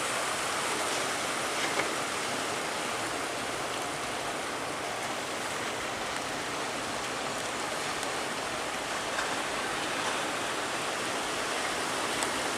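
Steady rush of big sea waves and churning water, with a couple of faint knocks about two seconds in and near the end.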